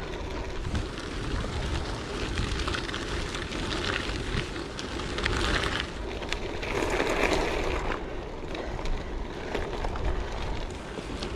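Wind rushing over a bike-mounted action camera's microphone while a gravel bike rolls along, with tyre noise and occasional small clicks and rattles.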